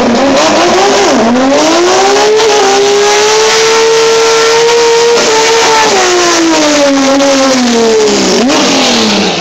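Drag-race Toyota Celica doing a burnout, its engine held at high revs while the rear tyres spin on the track. The engine pitch climbs over the first two seconds, holds high, then sags slowly, with a quick blip near the end before it drops off.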